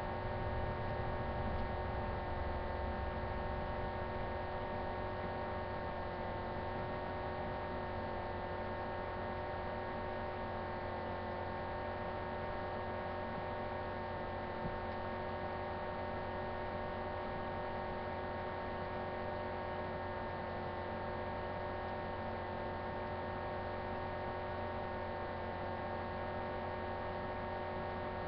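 A steady electrical hum made up of several constant tones over a low background hiss, unchanging, with one small click about halfway through.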